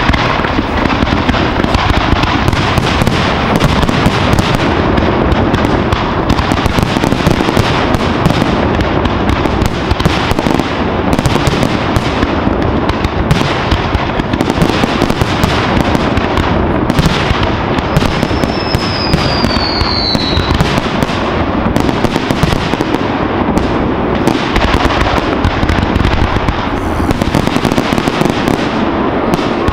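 Fireworks display: a dense, continuous barrage of aerial shell bursts and crackling, with a falling whistle about 18 seconds in.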